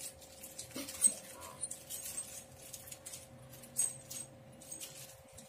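Small steel leather hole punches and snap-setter tools clicking and clinking lightly against each other as they are turned over in the hand, with a few sharp metal clicks, the loudest about a second in, over a faint steady hum.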